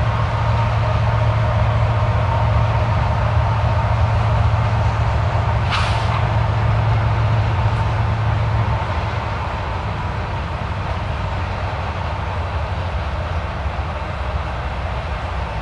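Freight train cars, tank cars and autoracks, rolling past with a steady rumble and clatter of wheels on rail. There is a brief high screech about six seconds in, and the rumble eases slightly near the nine-second mark.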